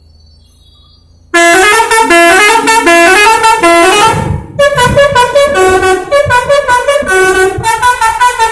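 Bus's Basuri V3 telolet musical air horn playing a fast melody of short stepped notes. It starts suddenly and loud about a second in, over a faint low hum, and breaks off briefly near the middle before carrying on.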